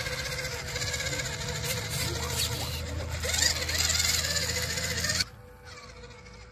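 Radio-controlled 6x6 scale truck's electric motor and gears whirring as its tyres churn through mud and water, with a steady hum under the noise. The sound cuts off suddenly about five seconds in, leaving only a quiet background.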